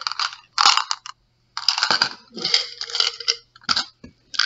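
Jelly beans rattling and clattering in small plastic tubs as the tubs are moved and set down on a wooden table, in several short bursts.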